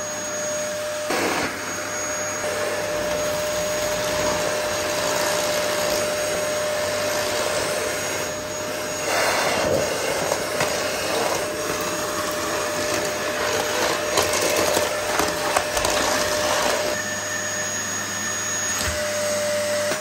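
Dyson DC08 cylinder vacuum cleaner running with a steady motor whine, its turbo brush head working over carpet and then a hard laminate floor. A stretch of clicking and crackling about halfway through, as it sucks up the dirt on the hard floor.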